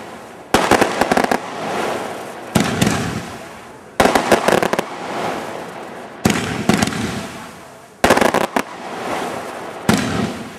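Fireworks going off in a rapid sequence: a sharp bang about every two seconds, each followed by a crackling hiss that fades away, with several cracks in quick succession near the end.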